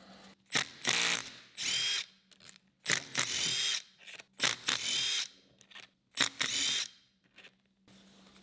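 Cordless impact driver hammering on and spinning out lathe chuck bolts in five short runs, its motor whine rising during each one.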